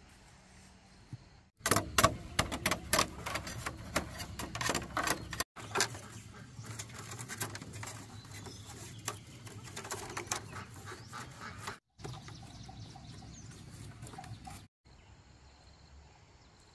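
A quick run of loud, sharp clicks and snaps, then split bamboo strips rustling and clicking against each other as they are woven by hand into a basket.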